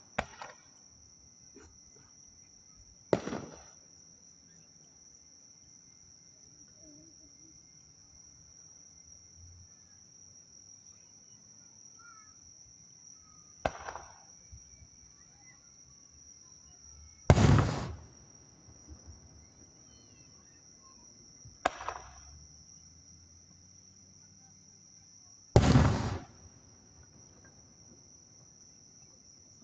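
Aerial firework shells bursting, six booms spaced several seconds apart, two of them (about 17 and 26 seconds in) the loudest and deepest, each with a short rumbling tail. A steady high-pitched insect trill runs underneath.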